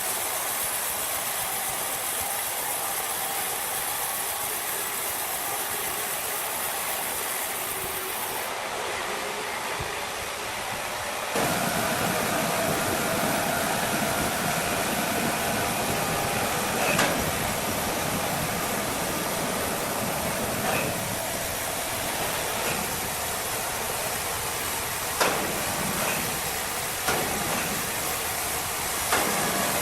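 Steady, hissing machinery noise that shifts abruptly twice early on, then gets louder and carries several sharp knocks in the second half.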